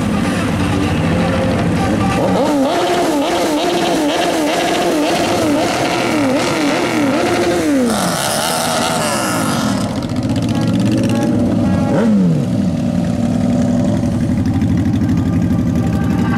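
Several motorcycles running at low speed, one or more revved over and over so that the engine pitch rises and falls repeatedly. A few longer revs drop away later on.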